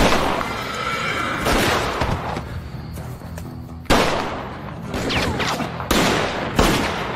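Gunfire from rifles and handguns: about five sharp shots a second or two apart, each with a ringing tail. A horse whinnies between the shots, over a tense dramatic music score.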